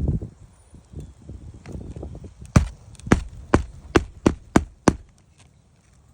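Hammer driving roofing nails into asphalt shingles: a few duller knocks, then seven sharp blows in a quickening run, about two to three a second.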